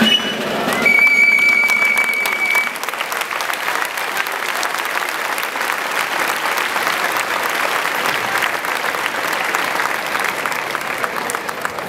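The band's last long high note is held for about two seconds near the start. Then a large crowd applauds steadily.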